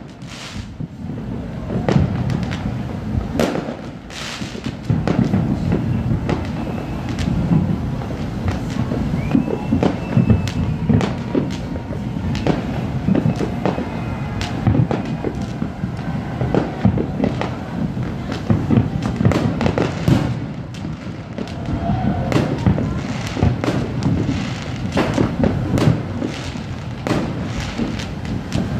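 Aerial fireworks bursting in a dense, continuous barrage: many overlapping bangs and crackles over a steady low rumble.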